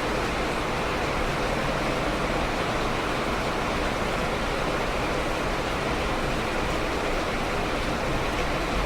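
Steady rain, a dense even hiss with no single drops, thunder or other events standing out.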